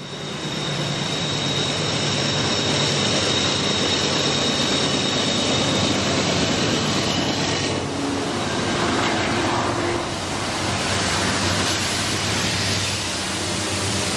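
A passing train: a steady rumble of wheels on rail, with a thin high squeal over it for the first six seconds or so.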